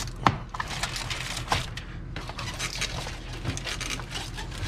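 Aluminium foil crinkling and crackling as hands handle a foil-covered tote lid and its black plastic pipe fitting, with a sharper click about a quarter second in. A steady low hum runs underneath.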